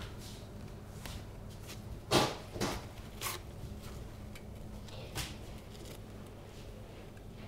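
Light handling noises on a paper-lined baking tray: a few short knocks and rustles of kitchen paper as fried doughnuts are picked at and moved, the loudest knock about two seconds in, over a steady low room hum.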